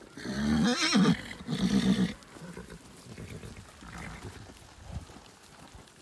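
Arabian horse whinnying loudly, a wavering neigh that falls in pitch in the first second, followed by a second shorter call, then quieter low sounds of the herd moving.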